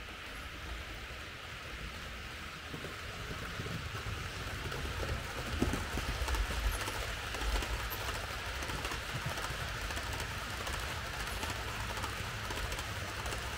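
Märklin H0 model train running on the layout: a low rumble of wheels and motor with irregular clicks as the wheels pass rail joints and points, swelling about halfway through.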